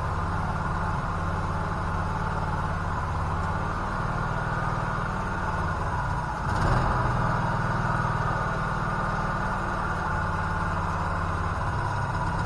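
Portable generator's small engine running steadily, idling down on the last of its fuel after the fuel valve was shut off, with the choke pulled. About halfway through a sudden bang is heard, and the engine runs a little louder afterwards.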